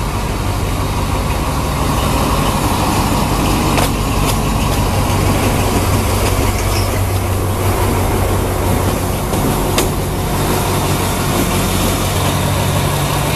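Alsthom AD24C diesel-electric locomotive running past at low speed, its diesel engine humming steadily. A few short clicks sound about four seconds in and again near ten seconds.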